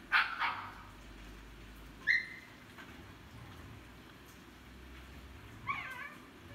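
Huskies giving a few short, high yips: two quick ones at the start, one about two seconds in, and a brief wavering whine near the end.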